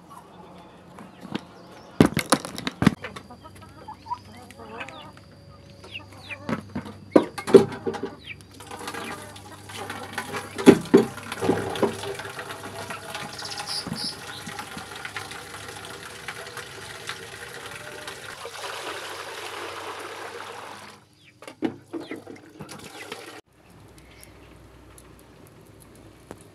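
Chickens clucking and a few sharp knocks, then water running from an outdoor tap into a plastic bucket for about twelve seconds before it cuts off.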